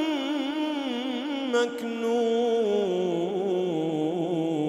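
A man reciting the Quran in slow, melodic tajweed chant: one long held and ornamented vowel line that wavers and steps down in pitch, with a brief breath-like break about a second and a half in.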